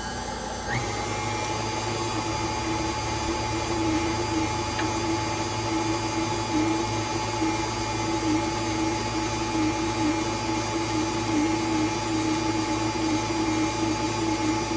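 Electric mixer running steadily, beating cheesecake filling of cream cheese and condensed milk in a mixing bowl, with a steady motor whine; it gets louder about a second in.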